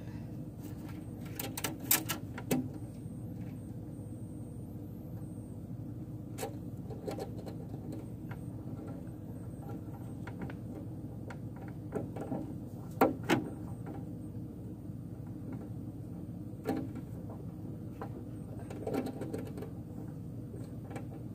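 Handling noise: scattered light clicks and knocks, the loudest a few about two seconds in and in the middle, over a steady low hum.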